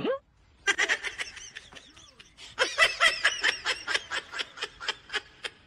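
A person laughing in rapid bursts, about five a second, in two runs with a short break about two seconds in.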